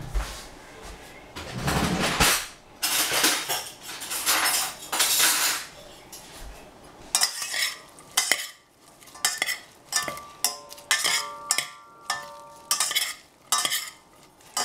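Shredded salad vegetables tossed and stirred in a stainless steel saucepan with a fork. First come rustling swishes, then from about halfway many sharp clinks of the metal against the pot, some of them ringing briefly.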